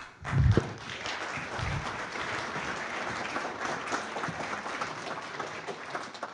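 Audience applauding: many people clapping at a steady level, with a couple of low thumps in the first two seconds.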